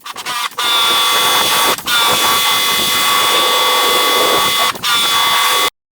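A high-speed power tool running with a steady high whine over a hissing rush, after a few short trigger blips at the start; it drops out briefly three times and then cuts off suddenly near the end.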